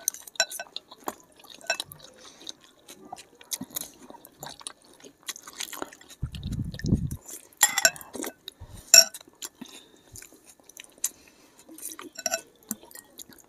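Noodles being slurped and chewed in quick mouthfuls, with wet sucking bursts and small clicks of forks and spoons against glass bowls. A dull low thump a little past six seconds in.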